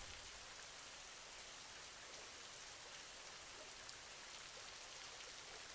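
Near silence: a faint steady hiss between the end of the intro music and the start of speech.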